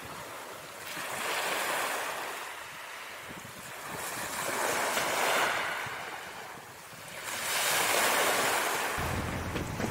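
Ocean surf: waves washing in and drawing back, swelling and fading three times about three seconds apart.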